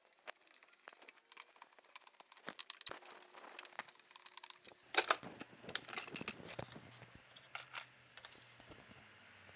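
Hard plastic cover of a car's engine-bay relay and DME box being worked loose and lifted off: a run of clicks, scrapes and rattles, with a louder knock about halfway through.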